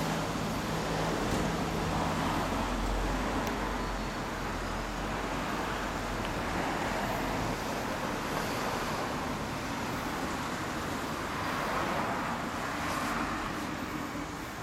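Road traffic: cars passing by on a busy street, a steady hum that swells and fades as vehicles go by.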